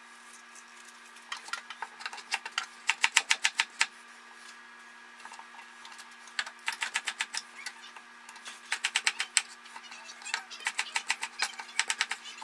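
Chef's knife chopping fresh ginger on a wooden cutting board: quick runs of knocks, several a second, in four bursts with short pauses between, over a faint steady hum.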